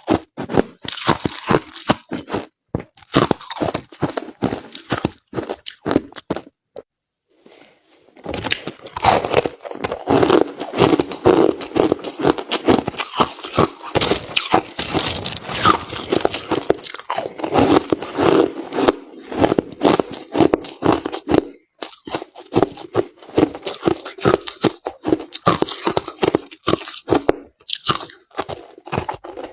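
Crushed ice being bitten and chewed close to the microphone: rapid, loud crunching. There is a pause of a second or so about seven seconds in, and the crunching is denser after it.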